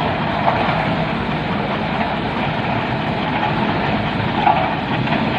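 Road roller engine running steadily with a heavy, even mechanical noise.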